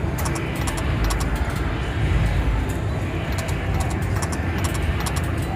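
Video slot machine spinning: a run of quick clicks as the reels spin and stop, twice, about four seconds apart, over a steady low rumble of casino background noise.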